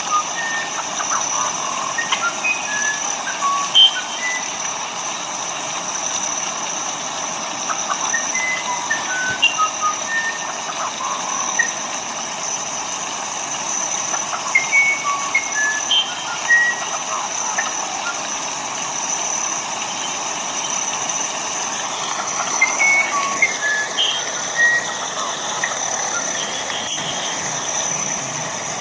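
Steady rain hiss with many short bird chirps and whistles scattered irregularly through it, over a steady high thin tone.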